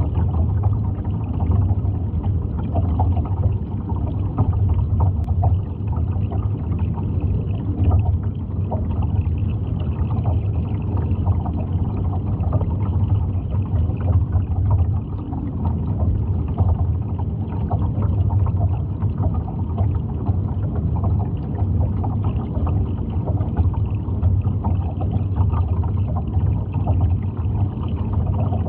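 Underwater ambience: a steady low rumble of water with a dense crackle of small clicks and ticks, unchanging throughout.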